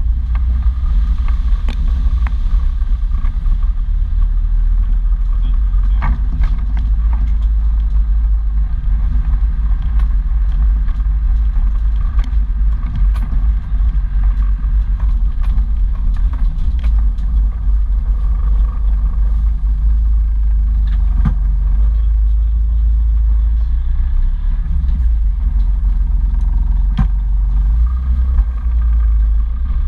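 An off-road vehicle's engine running with a steady low rumble as it drives slowly along a rough, wet dirt track. It is picked up close by a microphone on the bonnet, and a few sharp knocks and clatters come from the body and suspension over bumps.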